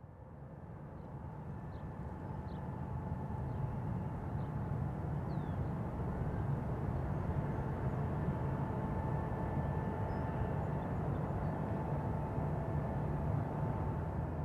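Boeing 747's four jet engines at takeoff power down the runway: a steady low rumble with a thin steady whine over it, building over the first few seconds and then holding.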